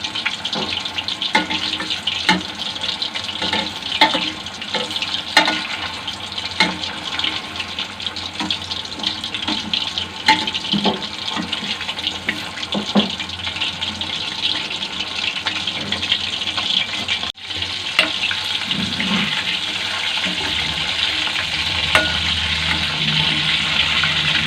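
Marinated chicken pieces deep-frying in hot oil: a steady sizzle and bubbling, with occasional sharp clicks as the pieces are turned in the pan.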